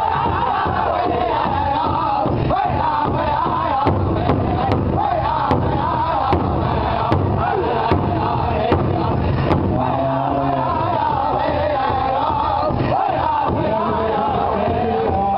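Powwow drum group singing together in a wavering chant over a large shared drum beaten in unison with drumsticks. From about four seconds in to about nine and a half, a run of louder, evenly spaced drum strikes stands out, a little more than one a second.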